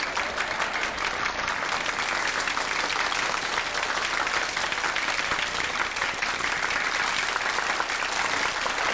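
A room of banquet guests applauding steadily, a dense crackle of many hands clapping.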